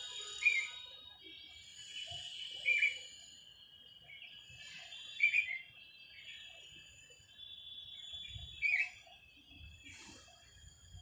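A bulbul calling from a treetop, a short loud note repeated every two to three seconds, over a steady high chirring in the background.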